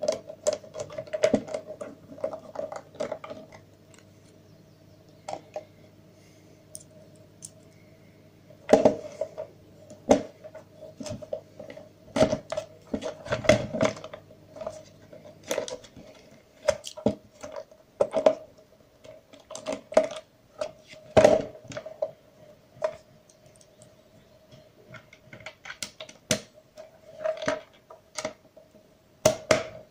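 Irregular clicks, taps and scrapes of a screwdriver working the screws of a plastic wireless gamepad's shell as it is unscrewed and handled, with a quieter pause a few seconds in. A faint steady hum runs underneath.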